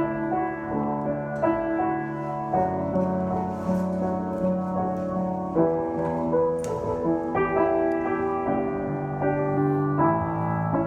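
Keyboard playing a slow introduction of held chords that change every second or two, ahead of the worship song's first sung verse.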